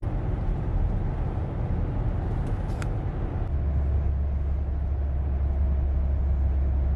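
Car driving through a road tunnel, heard from inside the cabin: steady low tyre and engine rumble, which deepens into a heavier low drone about halfway through.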